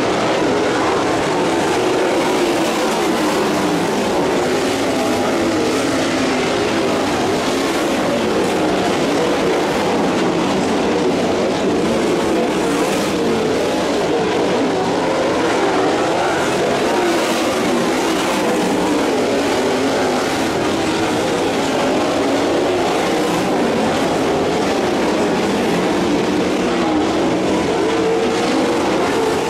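A field of USAC sprint cars racing together, their 410-cubic-inch V8 engines making one steady, unbroken noise.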